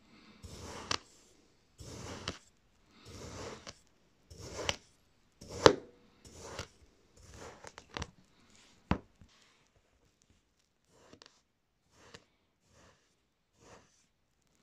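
Knife blade slicing repeatedly through packed kinetic sand, about one cut a second, each cut a short rush of noise that mostly ends in a sharp tap. After about nine seconds the cuts become fainter and shorter.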